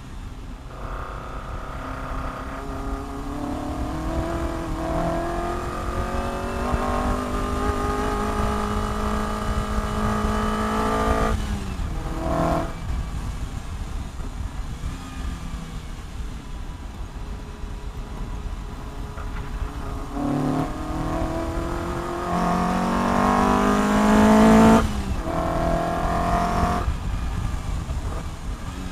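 Open-top sports car's engine heard from the cockpit while lapping a circuit. It pulls hard with a rising pitch for about ten seconds and cuts off sharply as the throttle is lifted, then runs lighter with a couple of short blips. A second hard pull near the end also cuts off abruptly, with wind buffeting rumbling underneath.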